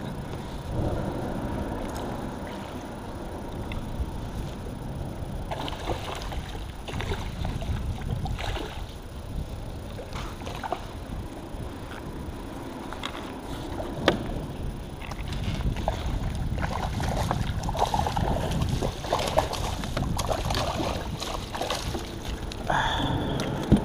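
Water lapping against a fishing kayak's hull, with gear being handled and a couple of sharp knocks, one about halfway through and one near the end.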